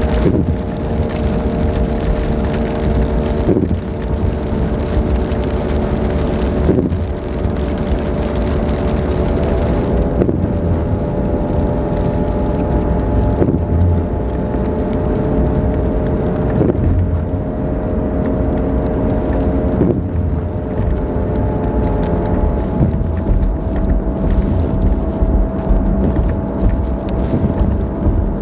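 Car cabin noise while driving: steady engine and road drone with wind against the car, and a faint stroke repeating about every three seconds.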